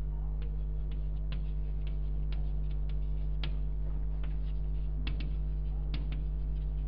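Chalk tapping and scratching on a blackboard as words are written: short, irregular clicks. Under it runs a steady electrical mains hum, the loudest thing throughout.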